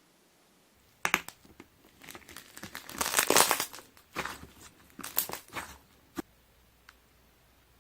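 Air-bubble slime being pressed and squeezed, its trapped air bubbles popping as runs of small sharp pops. The pops come in bunches, thickest about three seconds in, then thin out to a few single pops.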